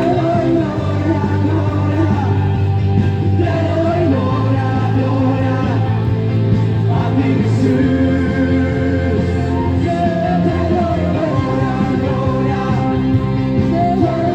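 Music with a singing voice over held bass notes that change every few seconds.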